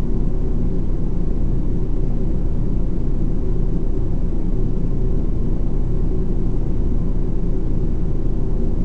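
Steady low rumbling hum of background noise, unchanging, with no distinct events.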